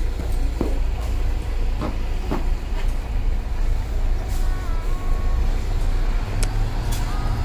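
City buses running in the street: a steady low engine rumble with a faint whine that steps up and down in pitch, and a few sharp clicks.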